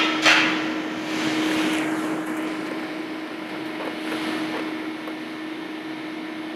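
Steady hum of commercial kitchen equipment, a constant drone with one low held tone, with a short clatter right at the start.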